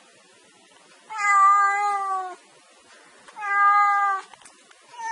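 A domestic cat meowing: two drawn-out meows a little over two seconds apart, the first longer and falling slightly in pitch, with a third meow beginning right at the end.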